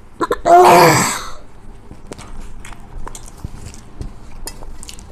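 A loud, pitched vocal sound lasting about a second, just after the start, followed by faint scattered clicks and taps of eating.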